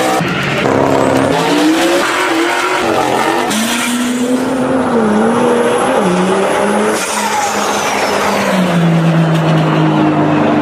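Turbocharged 2JZ straight-six of a built MK4 Toyota Supra at full throttle on a drag pass: the engine note climbs and drops in steps through the gear changes, with a high whine above it in the middle. Near the end it settles into a steady lower note.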